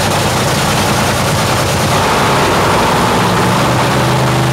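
Drag racing car's engine running loud and rough with a crackling note, steadying into a more even idle near the end.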